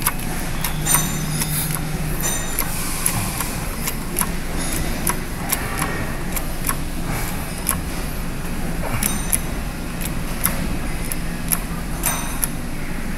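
Longacre 73505 coil spring tester being worked to compress a coil spring, giving irregular sharp metal clicks and clinks over a steady low hum.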